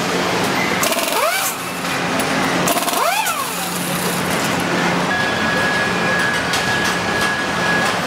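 Truck assembly line noise: a steady machinery hum under clatter and rattling tool noise, with two short whines that rise and fall in pitch about a second and three seconds in, and a steady high tone from about five seconds on.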